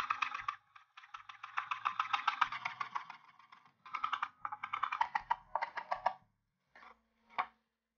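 Chef's knife rapidly chopping cilantro on a wooden cutting board: fast runs of blade taps against the wood in several bursts, stopping about six seconds in, then two single knocks near the end.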